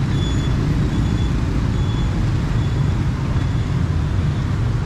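Steady rumble of busy city street traffic, with a faint high-pitched beep repeating a little more than once a second.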